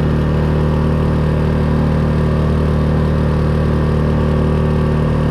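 Small outboard motor running at a steady cruising speed, driving a small boat along, with a constant, unchanging hum.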